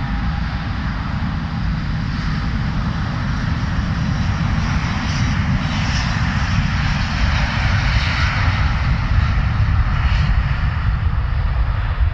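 Airbus A330-900neo's Rolls-Royce Trent 7000 turbofans at takeoff thrust during the takeoff roll: steady jet noise with a strong low rumble that grows louder, loudest about nine to ten seconds in.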